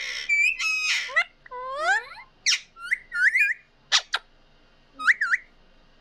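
Alexandrine parakeet calling and chattering: a quick run of short whistles and squawks, their pitch sweeping up and down, with a brief pause about four seconds in.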